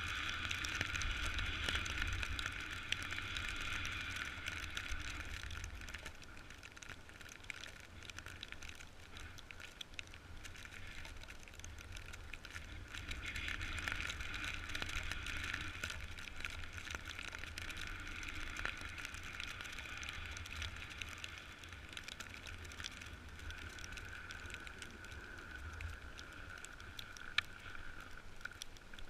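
A snowboard sliding and scraping over snow in a steady hiss, with wind buffeting the microphone in a low rumble. The sound swells and eases as the board carves.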